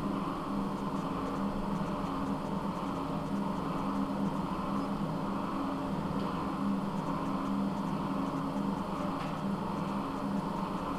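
SPS mini borer cylinder boring bar running steadily, its motor and drive giving an even mechanical hum as it bores a motorcycle cylinder.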